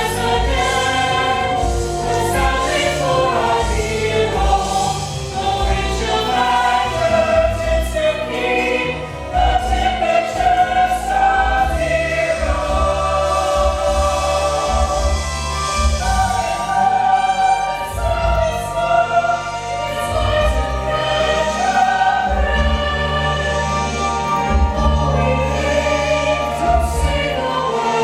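A musical theatre cast singing together in chorus over instrumental accompaniment with a strong bass line, as in a curtain-call finale.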